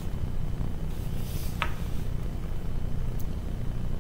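Steady low room hum, with a short faint tick about one and a half seconds in.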